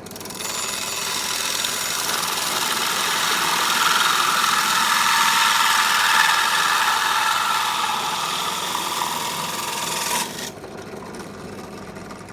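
A hole saw without its centre drill, spun by a power drill, cutting into polystyrene sheet: a loud grinding rasp starts about half a second in, builds steadily, and stops suddenly about ten seconds in as the cut goes through. After that the drill motor keeps running more quietly.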